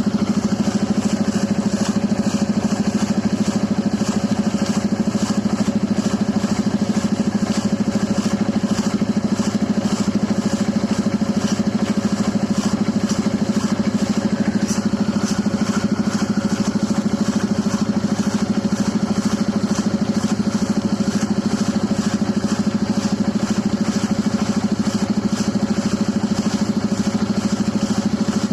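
Engine-driven air compressor running steadily while flushing out a water hand pump's bore: an even drone with a fast, regular ticking on top.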